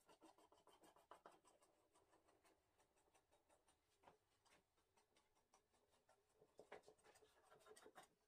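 Knife tip scratching through stacked phyllo sheets as it trims them around the rim of a round metal baking tray. It is a faint, quick run of scratchy strokes with a few sharper ticks.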